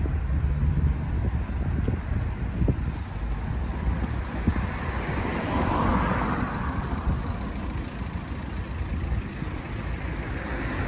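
Road traffic at a junction: cars driving past over a steady low rumble, with one car passing close about halfway through.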